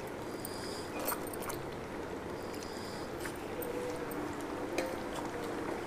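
Chicken gravy simmering in a steel kadai on a gas burner: a steady hiss with a few faint pops and clicks.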